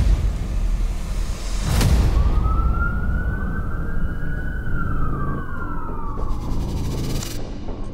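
A single siren wail that rises slowly, holds, and falls away over about four seconds, over a low rumble, with a sharp hit just before the wail begins.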